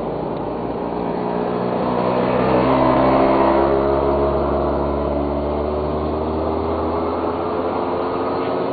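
An engine running, its pitch rising slowly and steadily as it speeds up, loudest about three seconds in.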